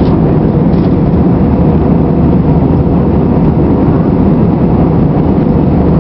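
Steady cabin noise of an Airbus A320-family airliner in flight: jet engines and rushing airflow heard from a window seat, loud and even, weighted to the low end.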